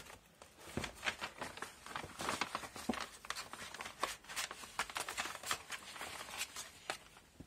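Paper crinkling and rustling as a cat paws and pushes through loose sheets of white paper, a quick uneven run of crackles that thins out near the end.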